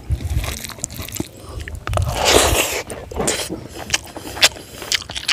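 Close-up eating sounds of a person chewing fried fish head with an open mouth: sharp wet clicks and smacks, with a longer noisy burst about two seconds in.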